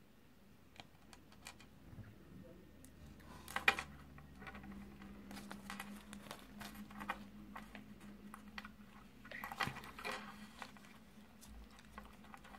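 Small plastic toy pieces from a Kinder Surprise egg clicking as they are handled and fitted together, with crinkling of the toy's printed wrapper; the loudest rustles come about 4 seconds in and again about 10 seconds in.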